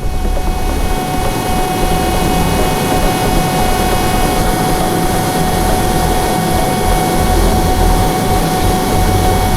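Grob G120TP trainer's Rolls-Royce 250 turboprop engine running, a steady turbine whine over a loud rush of propeller and exhaust noise with a deep rumble. A cluster of higher whining tones drops out about four seconds in.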